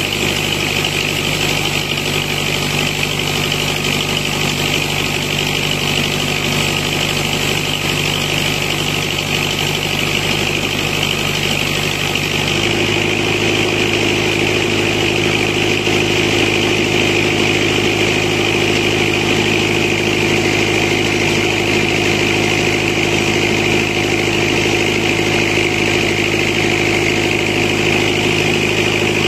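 Tractor-driven mobile sawmill running, the tractor engine holding a steady speed while it drives the saw blade through a thick log. About twelve seconds in, the sound changes and gets slightly louder, with a new hum joining and holding to the end.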